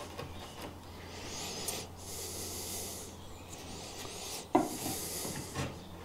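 A wood chisel pushed by hand, paring and scraping wood out of a hinge rebate in a door-frame rail, in a few scraping strokes. A sharp click comes about halfway through.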